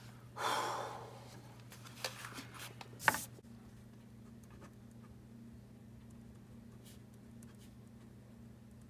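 Pen writing on a paper form on a desk, faint, over a steady low room hum. A short rush of noise comes about half a second in, small clicks follow around two seconds, and a sharp knock just after three seconds is the loudest sound.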